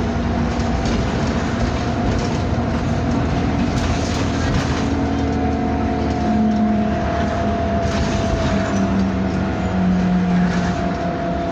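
Bus running under way, heard on board: a steady drivetrain rumble with a held whining tone over it and a lower tone that shifts in pitch a few times, the weird noises this bus makes.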